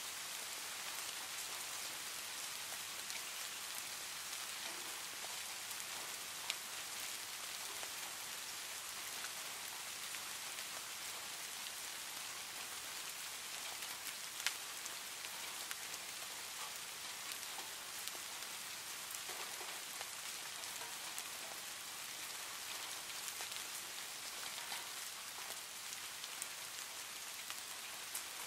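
Steady rain falling, an even hiss with a few sharp ticks standing out, the loudest about 14 seconds in.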